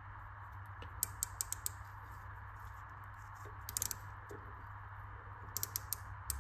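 Small sharp clicks in three short clusters from a micrometer being closed onto a turned steel bar, the ratchet thimble clicking as it seats, over a faint steady hum.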